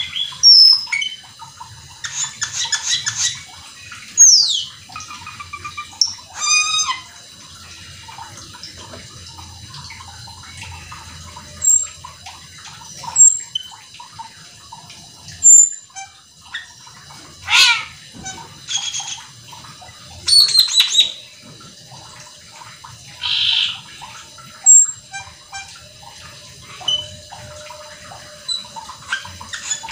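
Caged cucak keling (Asian glossy starling) singing in loud separate bursts: rapid rattling runs of notes, steep falling slurs, short sharp whistles and brief trills, with short pauses between them.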